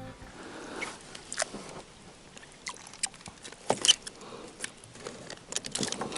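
Faint trickling water with scattered small clicks and knocks, a few of them sharper around the middle.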